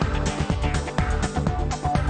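Background music with a steady electronic beat, about four beats a second.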